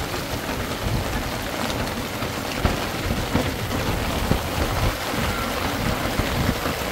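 Heavy rain falling steadily in a storm, with a low, uneven rumble of wind underneath.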